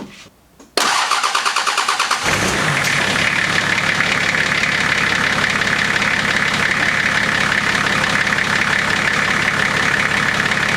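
Nissan TD42 4.2-litre straight-six diesel cranking for about a second and a half, catching about two seconds in and settling into a steady idle.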